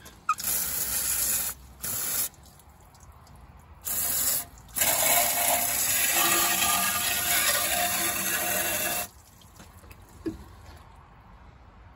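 Water spraying from a pistol-grip garden hose nozzle with a hose-end sprayer bottle, washing down an engine. It comes in bursts as the trigger is squeezed and let go: several short sprays in the first few seconds, then one long spray of about four seconds that cuts off suddenly.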